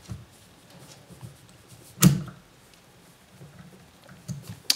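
Small parts being handled on a tabletop: faint clicks and rustles, with one sharp knock about two seconds in.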